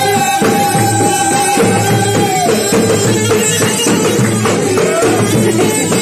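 Gulf bagpipe with a large leather bag playing a melody, holding one long high note and then dropping to a lower one about two and a half seconds in, over regular beats on a double-headed drum.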